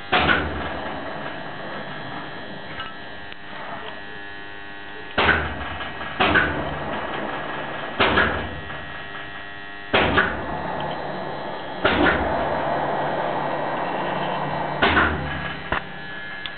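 Soviet horizontal boring machine running with a steady electric hum, broken about seven times by a sharp clunk, each followed by a surge of machine noise that dies away over a second or more. This fits the spindle being turned round in short steps to sweep the dial-gauge centre finder around the bore.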